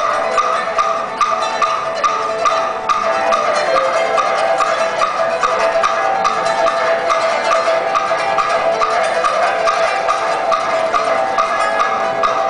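Solo pipa playing fast, evenly repeated plucked notes with a sharp, percussive attack.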